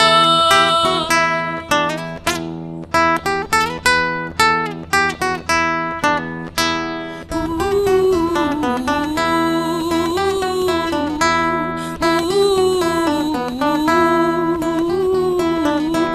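Acoustic guitar playing an instrumental passage of picked single notes. About seven seconds in, a sustained melody with vibrato comes in over held chords.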